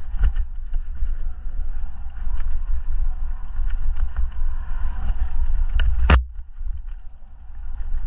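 Wind buffeting the microphone during a ride, with scattered rattling clicks and one sharp, loud knock about six seconds in.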